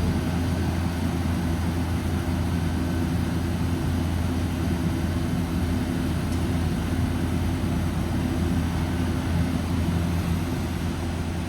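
Orion RKE2200B1-V-G2 inverter chiller running on a test run: a steady low machine hum with a few steady tones above it.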